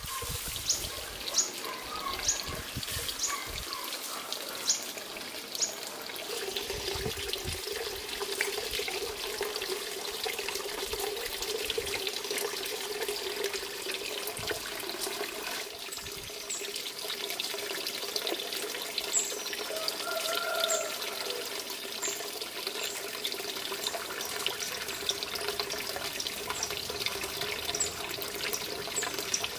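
Steady running water, with short high bird chirps scattered over it and a few light knocks in the first few seconds.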